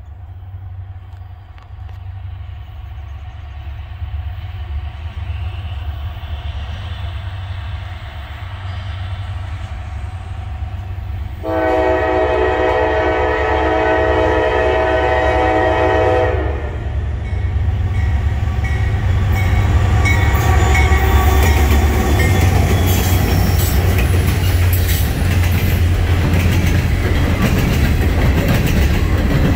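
Norfolk Southern coal train passing: the low rumble of its diesel locomotives grows as it approaches, and a locomotive horn sounds one long multi-note blast of about five seconds near the middle. After that the hopper cars roll by close with a loud rumble, wheel clatter and high-pitched wheel-on-rail noise.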